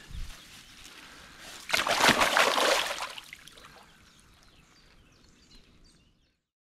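Large mirror carp splashing and sloshing in shallow margin water as it is released from a retention sling and swims off, with one loud burst of splashing about two seconds in that then fades away.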